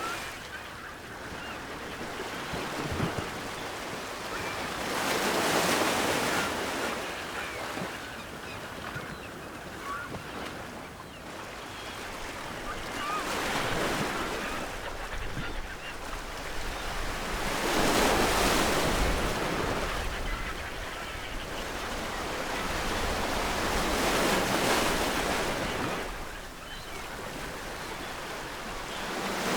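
Ocean waves breaking and washing onto the shore, swelling and ebbing in slow surges about every five to six seconds. Faint gulls call in the distance.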